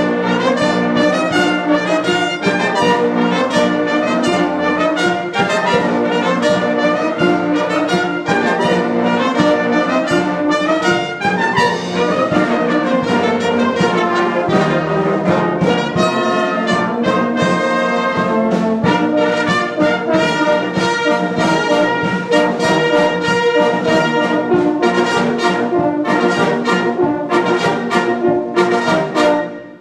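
Church brass band of trumpets, flugelhorns, tubas and baritone horns, with clarinets and flute, playing a piece together in full ensemble. The music stops shortly before the end.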